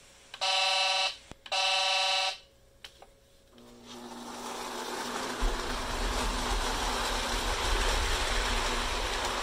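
Lionel Mopar diesel switcher toy locomotive sounding two blasts of its electronic horn, then pulling away: a steady motor hum and the rumble of its wheels on the track build up from the middle of the clip.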